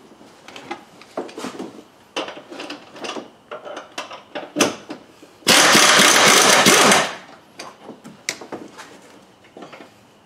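Impact wrench hammering loudly for about a second and a half, a little past halfway, as it works an engine mount bolt loose. Before and after it, scattered clicks and clinks of hand tools.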